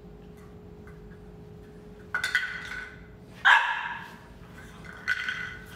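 Boxer puppy barking three times, short barks about a second and a half apart, the middle one loudest.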